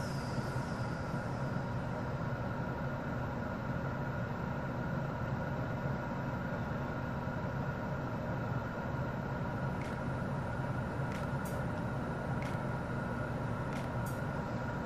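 A steady, unchanging hum, with a few faint clicks in the last few seconds.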